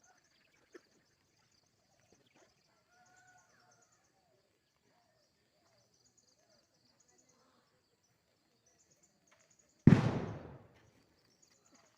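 A single loud bang about ten seconds in, sudden and dying away in under a second, over faint high chirping in the background.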